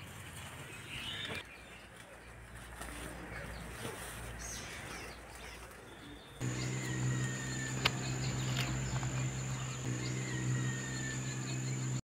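Outdoor garden ambience with birds chirping. About six seconds in, a steady low hum with a thin high whine sets in, and a falling bird call sounds twice over it.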